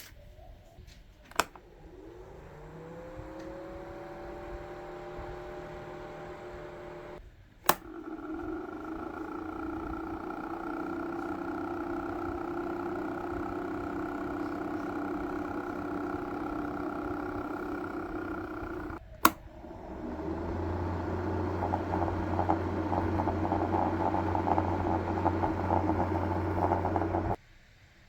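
Small battery-powered motor of a homemade mini ceiling fan whirring. It starts with a click and spins up with a rising whine, then steps up twice, each change marked by a sharp click, getting louder each time; the last setting adds a rattle and a low hum, and it cuts off suddenly near the end.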